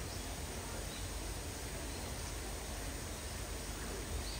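Steady outdoor background hiss of light rain, with a low rumble underneath and no distinct events.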